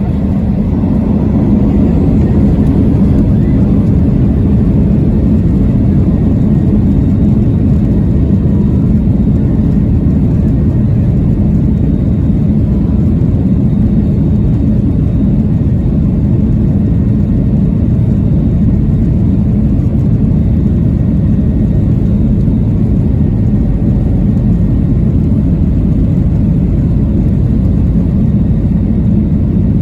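Boeing 737-800 cabin noise during the climb: a steady low roar from its CFM56-7B engines at climb power and from the rushing air, heard from inside the passenger cabin.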